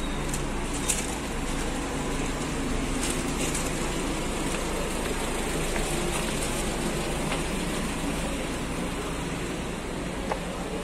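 Steady outdoor rumble of motor traffic, with two short sharp clicks, one about a second in and one near the end.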